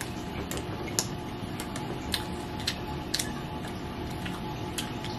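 People chewing bites of toasted waffle, with irregular sharp wet mouth clicks and smacks over a low steady room hum.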